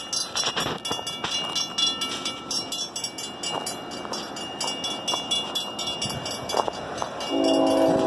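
Grade-crossing warning bell ringing in quick, even strokes as a freight train approaches. Near the end the lead locomotive's air horn comes in, a loud chord of several steady notes.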